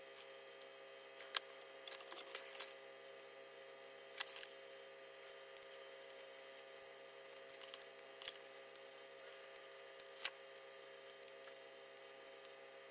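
Hobby knife lightly scoring lines into a foam wall piece along a steel ruler: short faint scratching strokes and three sharp clicks of the knife and ruler, over a steady faint hum.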